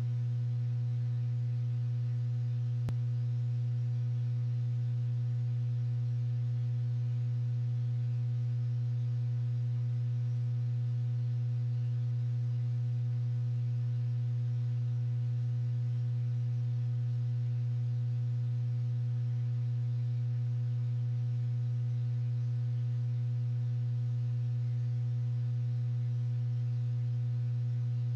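A steady low hum with a stack of overtones above it, unchanging in pitch and level, with one faint click about three seconds in.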